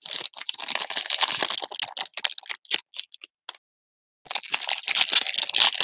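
Foil trading-card pack wrappers crinkling and tearing as the packs are opened and handled by hand, with a short silent gap about two-thirds of the way through.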